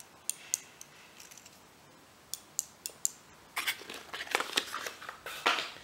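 Small plastic-and-metal VEX limit switches clicking and tapping as they are handled in a small cardboard box, then a stretch of cardboard rustling and scraping from about three and a half seconds in as the box is folded shut.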